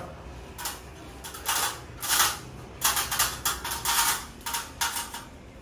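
Sheet-metal casing of a ceiling cassette air-conditioner indoor unit scraping and rattling as it is handled up into the ceiling opening: about ten short, irregular scrapes.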